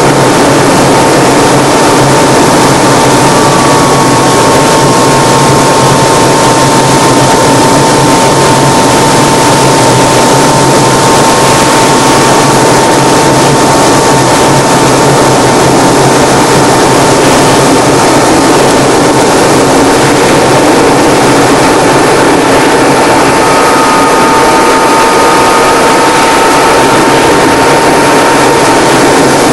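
Propeller-driven light aircraft's engine running steadily at high power, heard loud from inside the cockpit, with a steady high whine throughout and a fainter whine above it that comes and goes and drifts slightly in pitch.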